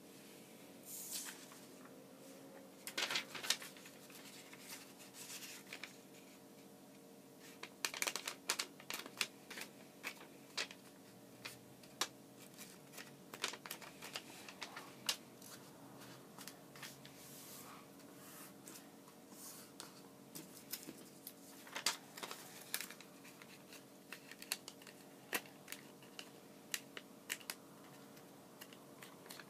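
Origami paper being handled and folded by hand: irregular crinkles, taps and crease clicks, busier at times, over a faint steady hum.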